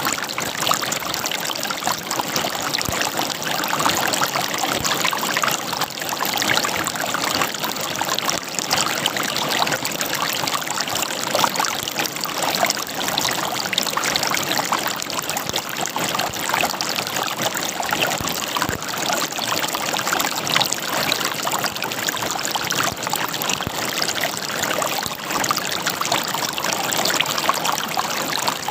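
River water gurgling and splashing over rocks, a steady dense rush with fine bubbling detail.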